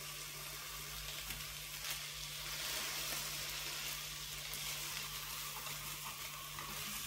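Two minced-beef patties sizzling steadily in a frying pan on a gas hob as a slotted spatula turns them over, with a few light scrapes and taps of the spatula on the pan.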